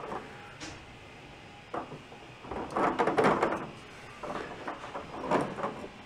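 3D-printed ABS plastic magnetic gear spinners clicking and knocking against a metal appliance door as they are handled, pushed back into mesh and spun, with a few separate knocks and a longer clattering stretch about halfway through.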